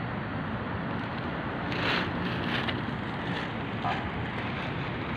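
Steady city ambience heard from high up: a distant traffic rumble with wind on the phone's microphone, swelling briefly about two seconds in.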